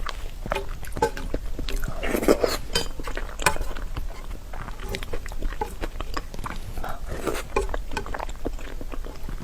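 Close-miked mukbang eating sounds: wet chewing and mouth smacking of soft pig brain in red chili oil, with scattered small clicks of utensils against a bowl.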